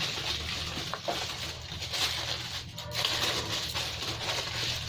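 Aluminium foil crinkling and rustling as hands press and crimp it over the rim of a biryani pot to seal it for dum cooking, with a low steady hum underneath.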